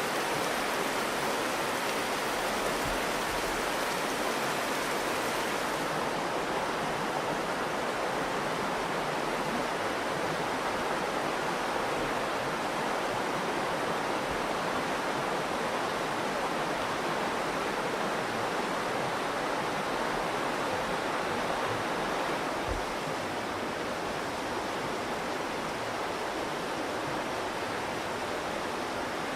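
The Virgin River running through the canyon: a steady rush of flowing water.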